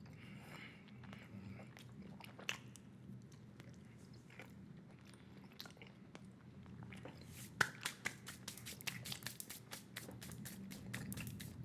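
Close-miked chewing of a wad of bubble gum: scattered wet mouth clicks, then a fast run of smacking clicks from about seven seconds in, over a low steady hum.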